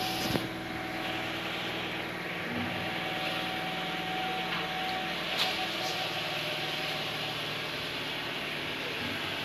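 A steady engine hum over background noise, with a brief light tap about halfway through.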